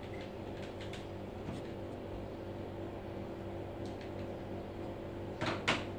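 Steady low hum with faint scattered clicks of game controller buttons being pressed. Two sharp clicks close together near the end are the loudest sounds.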